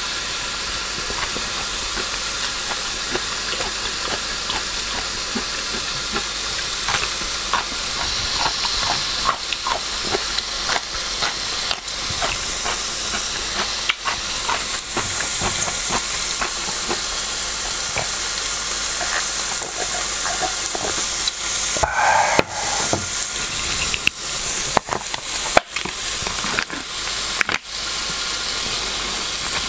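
Pork belly sizzling on a stovetop grill pan: a steady frying hiss. Scattered light clicks run over it, and from about 22 seconds in come sharper clicks, taps and a short squeak as a small plastic container is handled and opened.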